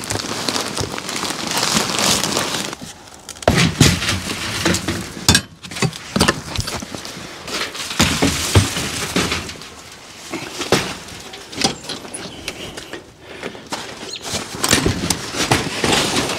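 Hands-on work noise: irregular knocks, clatters and scraping as things are handled and moved about.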